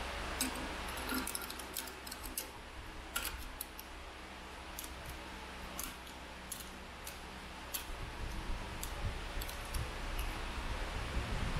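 Irregular small metallic clicks and taps as a metal throttle tube is handled and slid onto a chrome handlebar against the throttle housing, over a steady low background hum.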